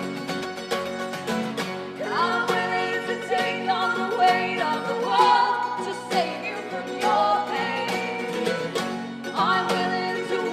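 Live guitar-and-vocal music: guitar playing, with a sung line coming in about two seconds in and again near the end.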